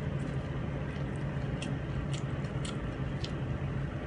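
Quiet eating sounds: scattered faint clicks and smacks as a person chews and picks at rice and fish on a plate with her fingers, over a steady low hum.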